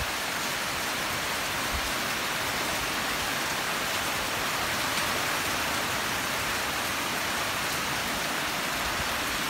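Torrential typhoon rain pouring down, a dense, even hiss that holds steady throughout.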